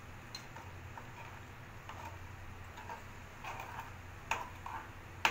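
Steel spoon stirring thick curry in a kadai, the metal clicking and scraping against the pan in irregular light ticks, with two sharper knocks near the end.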